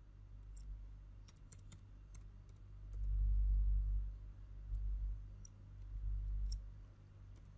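Computer keyboard keys tapped in scattered, irregular clicks as a password is typed, with a low rumble swelling under them a few times.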